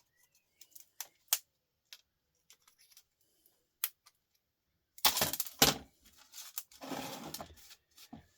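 Small hand pliers clicking and snipping as components are cut and prised off a circuit board: a few sharp separate clicks, then about five seconds in a louder clatter of metal and plastic parts rattling as they are handled.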